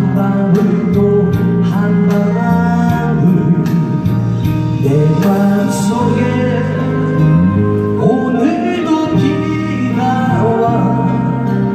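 A man singing a slow Korean 7080-style ballad into a handheld microphone over a backing track with a steady beat.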